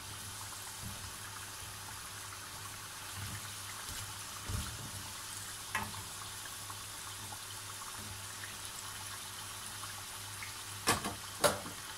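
Aloo samosas sizzling steadily as they deep-fry in oil at medium-low heat, with a few light clicks as a metal slotted spoon turns them. Two sharp knocks come near the end.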